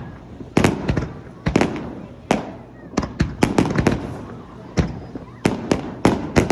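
Aerial fireworks shells bursting in rapid, irregular succession: some twenty sharp bangs, each trailing off, coming thickest in the second half.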